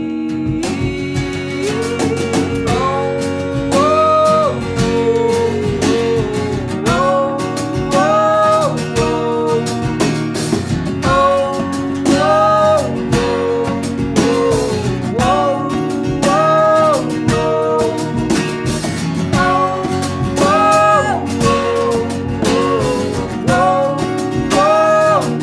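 Band music in a wordless passage of a song: guitar accompaniment under a melodic lead line that repeats a short rising phrase about every four seconds.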